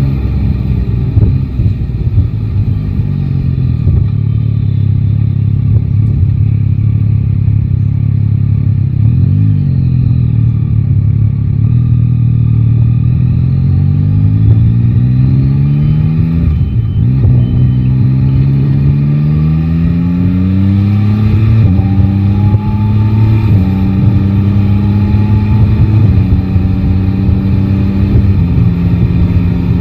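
Yamaha Tracer 9 GT's 890 cc inline-three engine under way. The revs climb and fall several times, with a series of gear changes in the second half.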